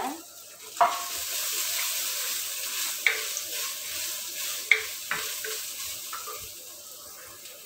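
Whole spices, dried red chillies and grated coconut sizzling in a little oil in a clay pot as a wooden spatula stirs them, roasting the masala. A few sharp knocks of the spatula against the pot come through, and the sizzle slowly dies down.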